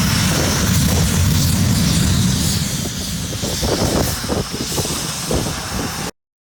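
Panavia Tornado's twin RB199 turbofan engines running loud as the jet passes, with a deep rumble under a steady hiss that grows rougher and slightly weaker after a few seconds. The sound cuts off abruptly about six seconds in.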